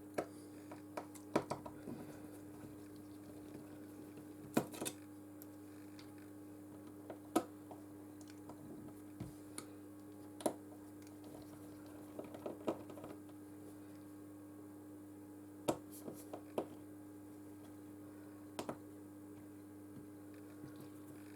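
Small hand tools clicking and tapping on a phone's frame and the work surface about a dozen times at irregular intervals, over a steady low hum.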